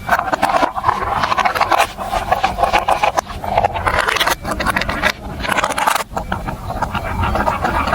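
Marbles rolling and clattering along a plastic building-block marble run track, a continuous rumbling roll full of small clicks, with a few brief breaks.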